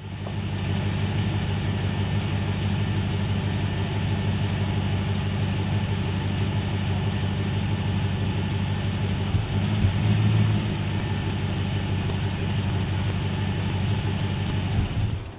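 2003 Toyota 4Runner's 4.7 L V8 idling steadily, heard through a doorbell camera's microphone, with a brief louder, higher spell about ten seconds in, then the engine suddenly cuts out near the end. The stall comes from a broken crankshaft position sensor wire, rubbed through against the crank pulley after a timing belt job, which set code P0341.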